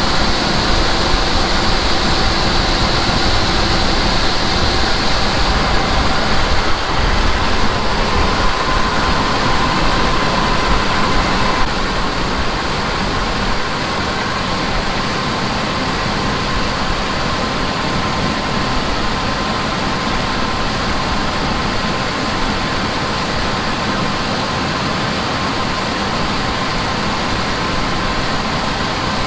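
Heavy farm machinery running steadily, a dense mechanical noise that drops slightly in level about twelve seconds in.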